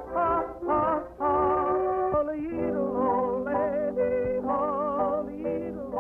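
Lively early-1930s cartoon soundtrack music: a few short phrases, then a wavering melody over a steady low note.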